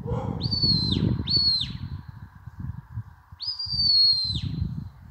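A shepherd's whistle giving commands to a sheepdog: two short high whistled notes, then a longer note that falls slightly in pitch, with wind buffeting the microphone.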